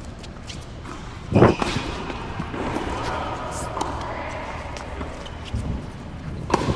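A tennis ball thudding on a hard court, once about a second and a half in and again near the end, with faint voices in between.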